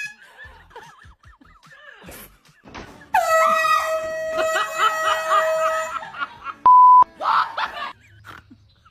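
Comedy sound effects: a loud horn blast held for about three seconds, with shrieking over it, then a short bleep-censor tone about seven seconds in.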